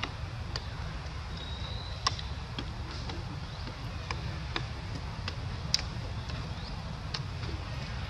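Outdoor ambience: a steady low rumble with about a dozen short sharp ticks scattered through it, a faint high thin tone near the two-second mark, and a few faint brief chirps.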